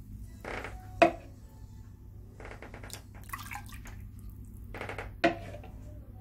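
Chicken broth poured from a metal ladle into a ceramic bowl over meat for aspic, with short splashes and two sharp clinks of the ladle against the bowl, one about a second in and one about five seconds in.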